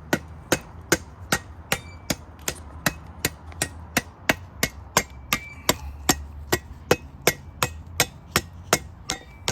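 Freshly sharpened blade hacking into a dry, hard cottonwood stick: a fast, even run of sharp chops, close to three a second.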